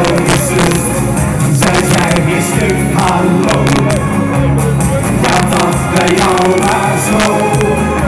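A Dutch carnival party song played loud over a PA, with a steady drum beat and a man singing into a microphone, recorded in poor sound quality.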